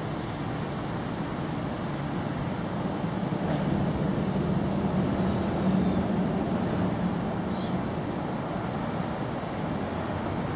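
Low rumble of a motor vehicle in the background, swelling for a few seconds in the middle and then easing off, over a steady outdoor hiss.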